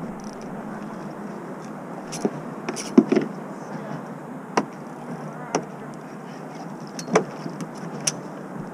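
Steady hiss of wind and water with several sharp knocks and clicks scattered through it, from fishing gear being handled on a plastic fishing kayak.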